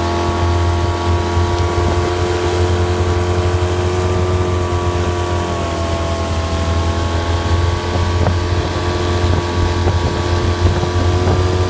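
Towing motorboat's engine running steadily at speed, with a low hum and a held engine tone that sags slightly midway, over the rush of the wake and wind on the microphone.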